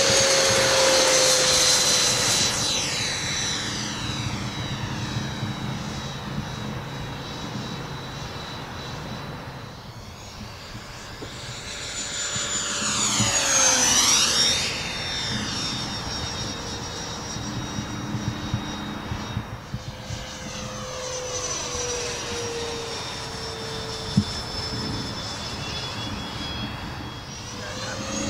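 80 mm electric ducted fan of a Freewing Mirage 2000 model jet whining at high throttle. It is loud on the takeoff run at the start and fades as the jet moves off. It swells again for a low fly-by about halfway through, where the whine drops in pitch as it passes, then continues more softly as the jet flies around.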